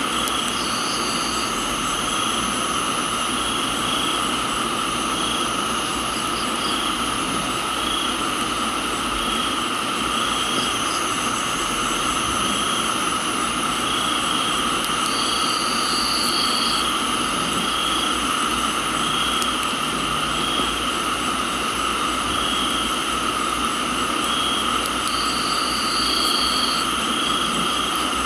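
Chorus of crickets and other insects trilling steadily at several pitches, one of them pulsing about once a second, over an even hiss of rain. A short buzzing insect call comes in near the start, in the middle and near the end.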